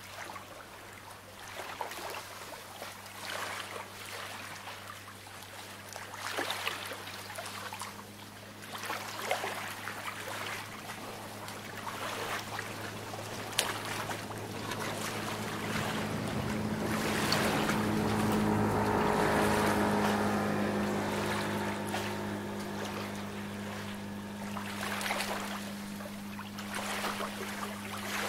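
Small waves washing in every few seconds, over the steady hum of a motorboat engine that grows louder as the boat passes, loudest a little past the middle, then fades back.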